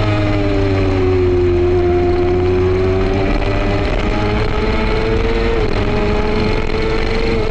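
F2 racing sidecar's engine heard onboard at speed, with wind rush over the microphone. The engine note sinks over the first couple of seconds, holds, climbs again from about four seconds in, and starts to sink once more near the end.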